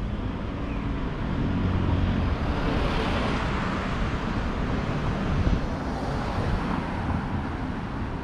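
Street traffic: a motor vehicle passes close by, its engine hum giving way to tyre noise that swells about three seconds in and then fades.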